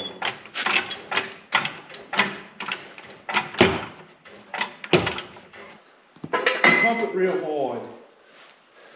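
Hydraulic floor jack being pumped by its long handle, giving a string of metallic clicks and clunks about every half second.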